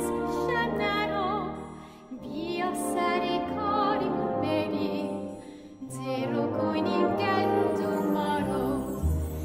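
Music: a melody with vibrato over held low bass notes, easing off briefly about two seconds in and again near six seconds.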